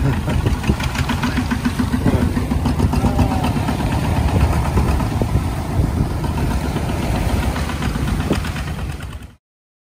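Two-wheel walking tractor's single-cylinder diesel engine running steadily while pulling a loaded trailer, with a rapid chugging firing beat; the sound cuts off suddenly near the end.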